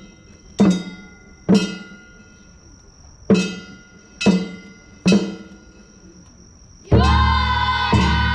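Festival percussion: six separate sharp strikes that ring with a bright metallic decay, unevenly spaced, then near the end a loud held chorus of voices calling in unison, broken twice.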